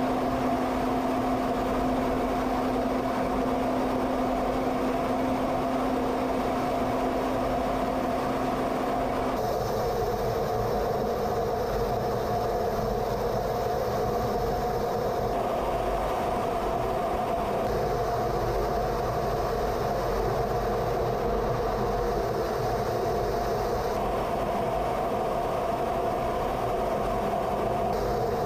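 Steady drone of engine and rushing air inside an F-15C Eagle fighter's cockpit in flight, with a steady hum running through it. The tone of the drone shifts abruptly a few times, and a lower hum drops out about nine seconds in.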